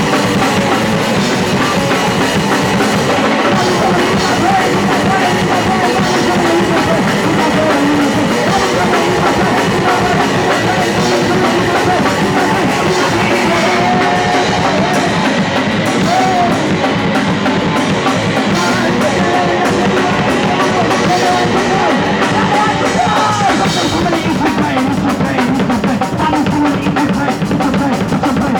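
Punk rock band playing a real fast song live: drum kit and guitars at a loud, even level with no break.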